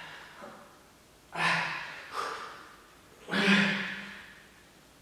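A man breathing hard during press-ups: three forceful exhalations about a second apart, the last, about three seconds in, voiced and the loudest.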